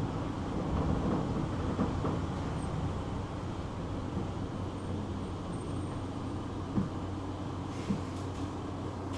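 Tram heard from inside the passenger car while running slowly: a steady low rumble of wheels and running gear with a constant electric hum, somewhat louder in the first couple of seconds, and a few sharp knocks from the car.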